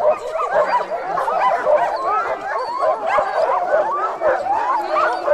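A pack of sled dogs whining and yelping all at once: a dense, unbroken chorus of many short rising and falling cries.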